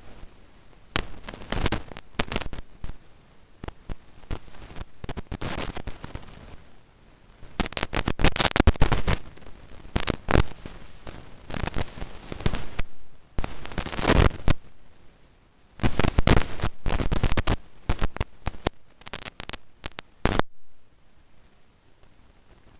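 Irregular clusters of loud crackling clicks, with short gaps between them, stopping about twenty seconds in.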